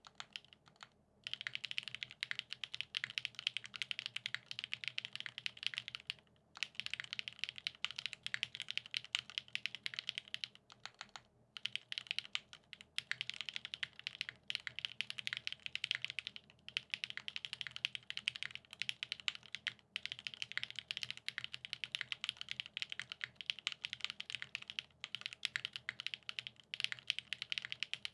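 Fast, continuous typing on a custom mechanical keyboard with lubed Gateron X SW Pure Berry linear switches on a polycarbonate plate and GMK keycaps, giving a dense stream of keystroke clacks with short pauses about a second in, around six seconds in and around eleven seconds in.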